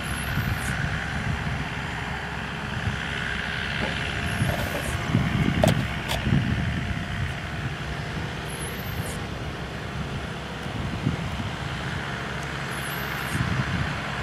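Diesel engine of an aircraft tow tractor running steadily as it pulls an Airbus A330 along the taxiway, a low rumble with a hiss above it. A couple of sharp knocks come about six seconds in.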